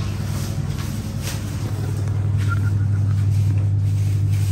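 A steady low hum runs throughout, the constant drone of machinery in a shop, with faint rustles and ticks over it.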